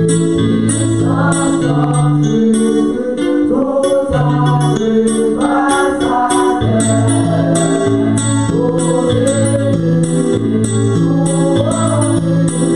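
Gospel worship song: a woman singing into a microphone over electric keyboard chords, with bass notes changing about once a second.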